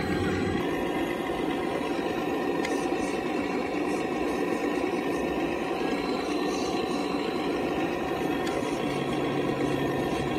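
Scale Caterpillar radio-controlled hydraulic excavator running as it digs, its hydraulic pump and motors giving a steady mechanical hum with a faint high whine.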